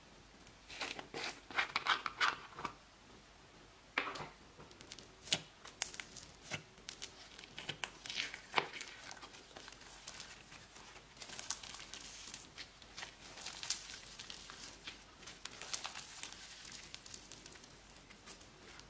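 Pink slime being pulled and stretched by hand, giving irregular sticky crackles and clicks, with a dense cluster of louder crackles about a second in.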